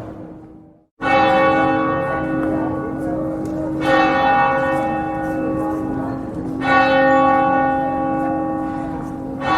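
A church bell tolling slowly, struck four times at about three-second intervals, each stroke ringing on into the next over a lingering low hum. The sound drops briefly to silence just before the first stroke.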